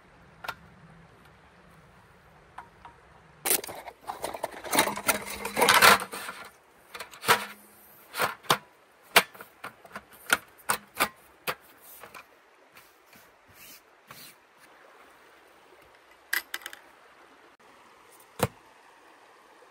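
Things being handled: an irregular run of sharp clicks and knocks with rustling, starting a few seconds in, busiest in the middle and thinning out toward the end.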